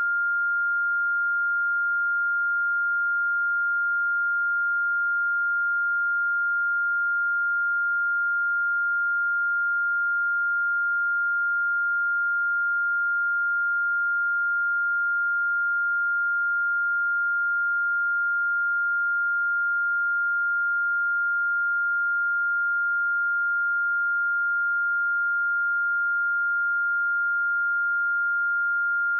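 A pure 1403 Hz sine-wave test tone, held at one steady pitch and level.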